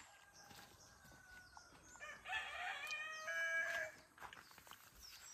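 A rooster crows once, starting about two seconds in, in one call of under two seconds.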